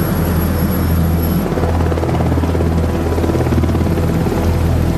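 Sea King helicopter's main rotor and twin turboshaft engines running: a steady, fast rotor beat over a low, even engine drone.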